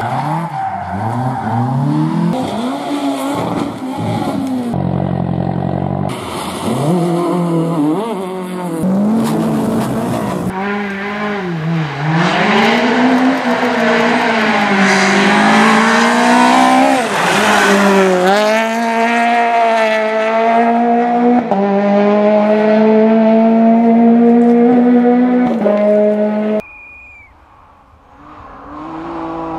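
Rally car engines on gravel stages, a run of short clips: engines revving hard, dropping and picking up again as the cars slide through corners. In the second half one engine is held at high revs, its pitch climbing slowly, until the sound cuts off suddenly near the end; after a couple of quiet seconds another engine approaches.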